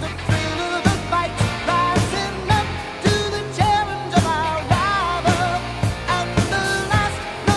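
Background pop song: a singer's voice over a steady drum beat.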